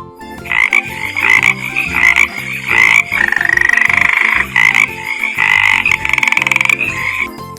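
Frog calling: a run of loud, rasping croaks mixed with longer pulsed trills, starting about half a second in and stopping just before the end. Quiet background music plays underneath.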